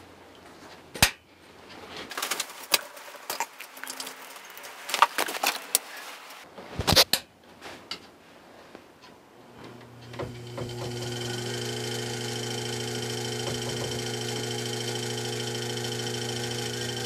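Clicks and rattles of wire terminals being unplugged and swapped by hand. About ten seconds in, a Cambridge 1.75 hp permanent-magnet DC treadmill motor starts and runs with a steady hum and whine, now turning the opposite way because its leads are reversed.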